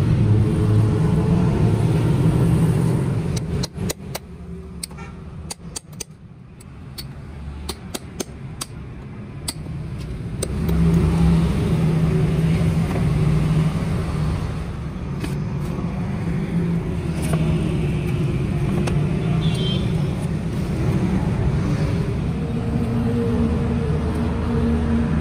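A motor engine running, its pitch shifting now and then. It fades for several seconds after about three seconds, while a string of light clicks and knocks sounds, then comes back.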